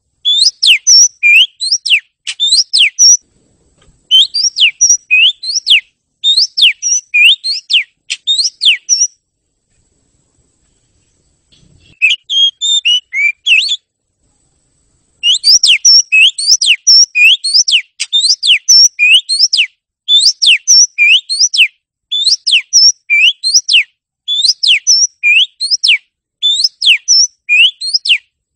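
Oriental magpie-robin (kacer) singing loudly: quick runs of sharp whistled notes, each sliding in pitch, grouped in bursts of about a second. The song stops for a few seconds about nine seconds in, comes back with a softer phrase, then runs on in close bursts.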